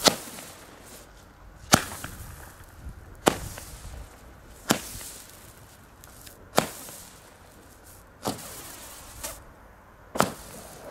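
Weco Flower Power ball-firing battery (a 12-shot Leuchtkugel cake) launching its coloured stars one at a time. It gives a sharp pop about every one and a half to two seconds, seven in all, and each pop trails off briefly.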